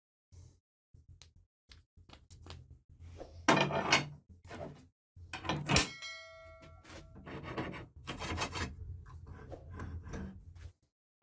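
Metal parts being handled in a workshop: scrapes, rubbing and knocks, with one sharp metal strike about halfway through that rings on for over a second.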